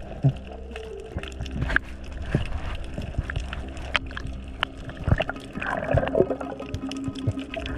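Underwater sound picked up by a diving camera: water moving around the housing with many scattered sharp clicks and crackles, and a gurgle about six seconds in.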